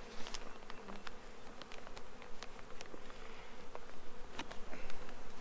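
A Carniolan honeybee colony buzzing steadily from an open hive box. Scattered light clicks and scrapes come from a metal hive tool working between the wooden frames.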